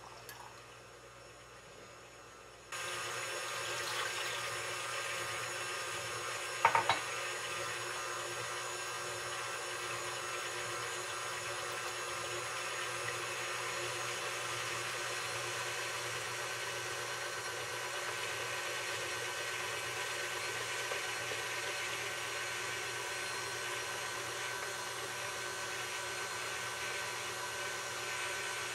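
Stand mixer's motor running steadily with its wire whisk beating batter in a stainless steel bowl, coming in abruptly about three seconds in. A single sharp clatter about seven seconds in.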